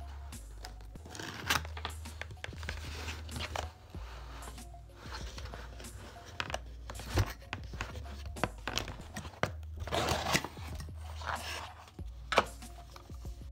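The tear strip of a cardboard shipping box being ripped open, with scratchy tearing and crinkling and scattered sharp clicks. The tearing is loudest about ten seconds in. Background music plays under it.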